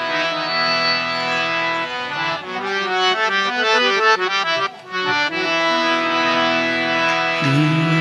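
Instrumental opening of a devotional bhajan, led by a harmonium. It holds chords, plays a quick run of notes through the middle, then settles on a held chord again, with a lower sustained note coming in near the end.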